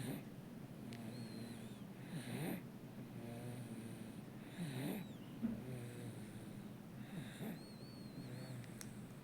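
A sleeping baby snoring, a raspy snore with each breath, about four breaths two and a half seconds apart.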